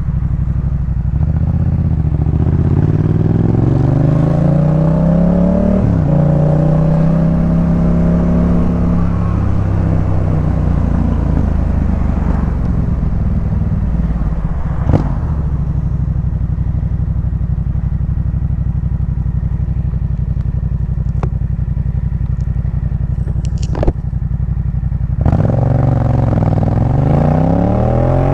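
Yamaha MT-07's parallel-twin engine through a Jeskap K4 full exhaust system, under way: the revs climb, drop sharply at a gear change about six seconds in, and climb again, then the engine runs at fairly even revs for a long stretch before pulling up through the revs again near the end. A few short clicks sound over it around the middle.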